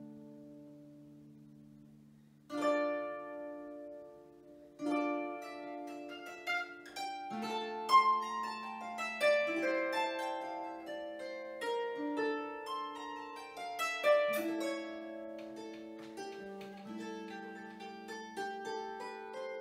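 Baroque harp played solo. A plucked chord rings and fades into a pause of about two seconds, then new chords are struck about two and a half and five seconds in, leading into running passages of plucked notes over sustained lower notes.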